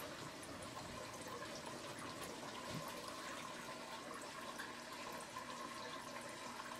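Steady running-water and bubbling noise of a home aquarium's aeration and filtration, with a faint steady tone beneath it.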